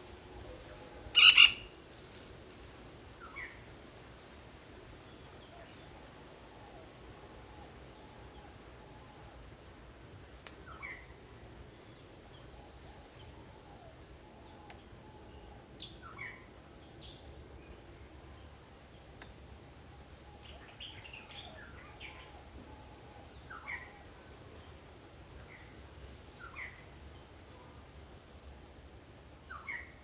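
Steady high-pitched drone of an insect chorus, with one loud sharp chirp about a second in and brief falling chirps every few seconds from small animals in the garden.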